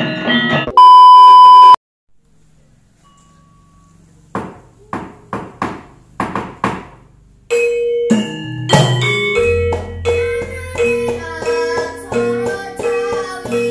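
A loud steady beep of about a second, then a short hush, a run of about seven sharp knocks, and then music with a steadily repeated note under a moving melody.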